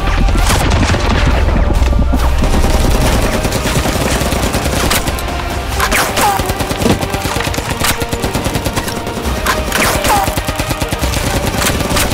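Rapid automatic gunfire sound effects in sustained bursts over background music, with a few short falling whistles in the second half.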